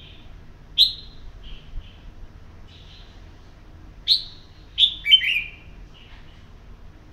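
Red-whiskered bulbul calling from its cage: short, sharp chirps, one loud note about a second in and a quick cluster of louder calls around four to five seconds, with softer chirps in between.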